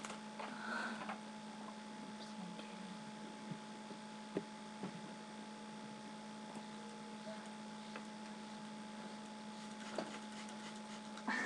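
Steady electrical hum with two constant tones, with a few faint, short clicks scattered through it.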